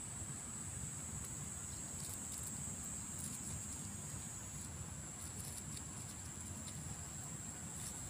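Insects trilling steadily at a high pitch, over a low even rumble.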